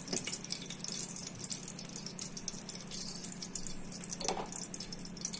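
Desi ghee heating in a steel pressure cooker, crackling and spitting in fine, irregular ticks over a steady low hum.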